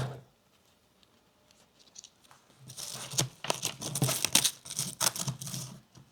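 Ratchet tourniquet's strap and fabric being handled as it is reset: near silence for about two and a half seconds, then a stretch of irregular rustling and ripping.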